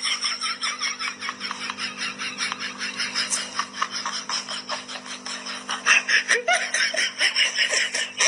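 A person laughing in quick, repeated bursts, on and on without a break.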